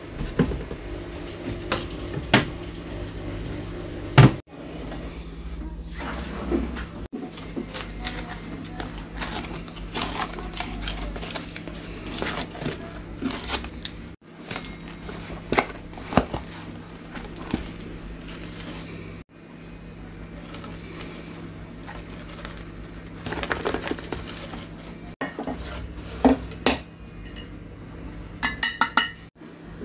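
Knocks, clicks and scrapes of household containers being handled: plastic scent-booster bottles and a cardboard detergent box moved and set down on a shelf, then a glass jar handled and wiped with a cloth, ending in a quick run of short squeaks. A steady low hum lies underneath.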